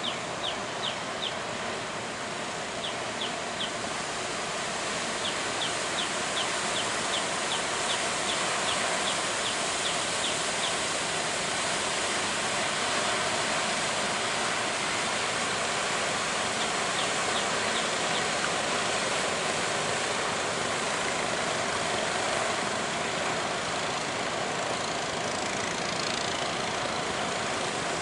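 Boat engine running steadily under a constant wash of noise, getting somewhat louder about four seconds in. Runs of quick, high ticks sound over it several times in the first half and once more later.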